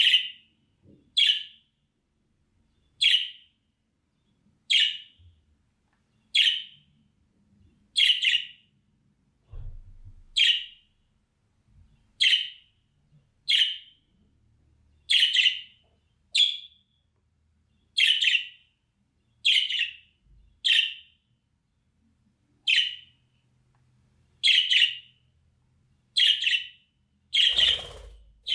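Budgerigar giving short, sharp contact calls, one roughly every second and a half. Near the end there is a brief flutter of wings as it flies off the perch.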